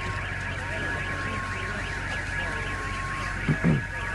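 Car alarm sounding with a rapid, evenly repeating warble that runs on without a break. About three and a half seconds in come two short, loud downward-sweeping sounds.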